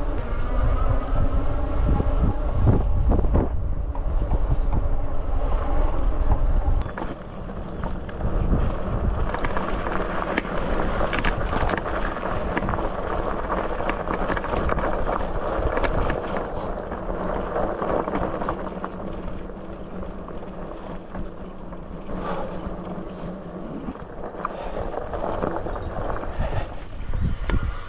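Wind buffeting a bare, unmuffled microphone on a moving fat-tyre electric bike, mixed with tyre noise. A heavy low rumble drops away about seven seconds in, leaving lighter wind and crackly tyre noise on a gravel path.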